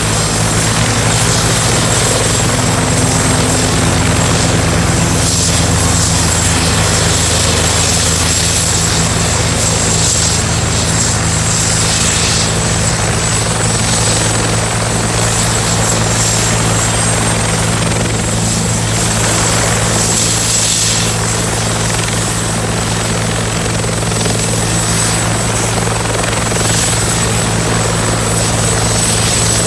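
Military helicopter running with its turbine whining high and steady over the low, even drone of the rotor. The sound holds steady, easing slightly about two-thirds of the way through.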